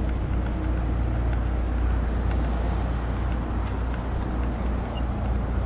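Steady low rumble of engines or machinery running, under a constant noisy hiss, with a few faint ticks.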